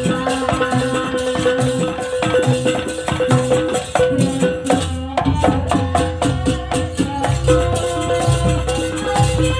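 Live Javanese jaranan ensemble music: struck percussion keeps a fast, even beat over a sustained high held tone. Deep low notes join about halfway through.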